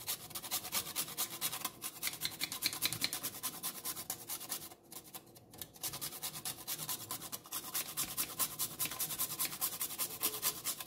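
Whole nutmeg grated on a flat metal hand grater: a fast, even run of scraping strokes, with a short break about halfway through.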